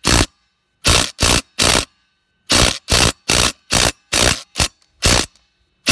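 Ridgid brushless cordless impact driver hammering in about a dozen short bursts, each about a quarter second, with brief pauses between, against a tractor wheel lug nut that does not break loose.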